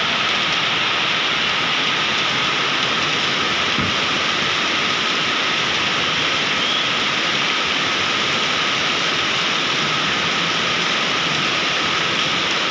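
Heavy rain pouring steadily onto flooded pavement and standing water, a dense unbroken hiss of splashing drops.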